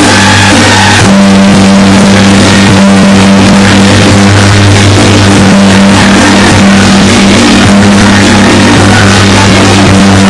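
Dense, continuous crackling of strings of firecrackers going off together, very loud, over a steady low hum.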